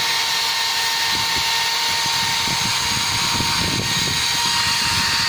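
Electric drill running steadily at high speed, a settled whine with a hiss over it, with irregular rough scraping underneath from about a second in.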